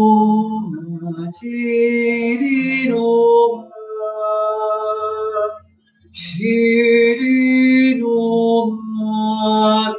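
A man singing slow, long-held notes in wordless 'light language' syllables, the pitch stepping from note to note about every second, with a short pause about six seconds in.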